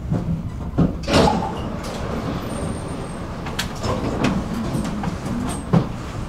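Tram running along the track: a steady low rumble with irregular knocks and clunks from the wheels and car body, the loudest a little after a second in and again near the end.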